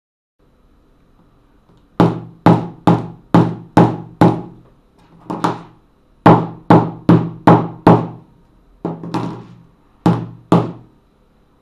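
A small hammer striking an iPhone lying on a wooden table: about sixteen sharp knocks in quick bunches, roughly two a second, each ringing briefly.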